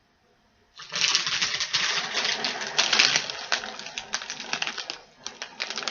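Wrapped hard candies clattering and crinkling as they are tipped and handled into a box: a dense run of many small clicks and rattles starting about a second in and easing off near the end.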